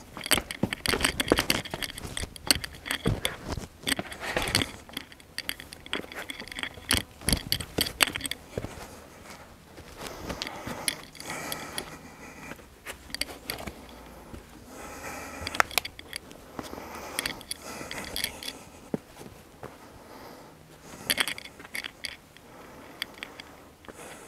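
A hiker scrambling up rocky boulders: shoes scuffing and scraping on rock, with many sharp clicks and rattles, busiest in the first eight seconds and again briefly near the end.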